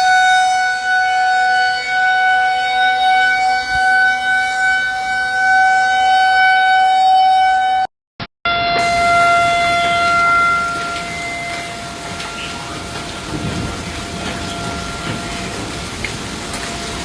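Federal Signal Thunderbolt 2001 outdoor warning sirens sounding a steady tone, the level swelling and dipping as the rotating horn sweeps. About eight seconds in there is a cut to a second Thunderbolt 2001 at a slightly lower pitch, which fades to a faint tone under background noise.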